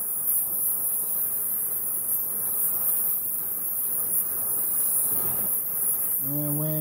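Oxy-propane cutting torch flame hissing steadily against the edge of a steel plate while it preheats the metal before the cut.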